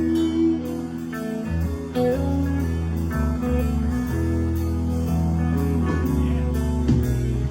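Live band playing an instrumental passage of a song: guitar lead with held notes over a steady bass line and drums.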